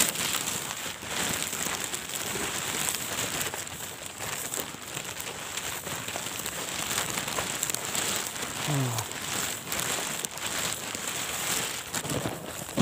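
Footsteps swishing and rustling through wet grass and weeds, over a steady hiss of rain.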